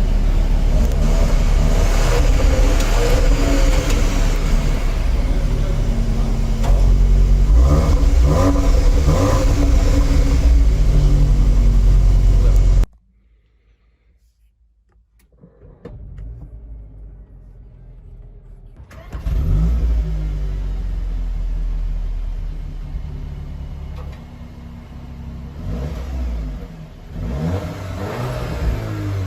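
2020 Cupra Formentor's engine and exhaust running loud under revs or acceleration. It cuts off suddenly to near silence about 13 seconds in. It comes back a few seconds later and revs up and down with rising and falling pitch near the end.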